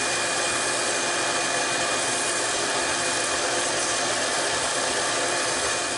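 320-grit sandpaper held by hand against a dyed wooden bowl spinning on a King KWL-813VS variable-speed wood lathe: a steady sanding hiss over the running lathe, sanding back a water-based dye coat.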